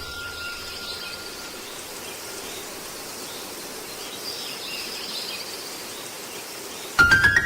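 Outdoor ambience: a steady hiss of background noise with faint bird chirps or insect calls. About seven seconds in, music starts abruptly with loud sustained notes.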